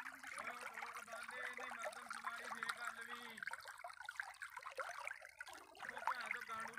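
Irrigation water rushing and gurgling as it floods across a field between crop rows. Under it a steady low hum holds for about three seconds, stops about halfway through, and comes back near the end.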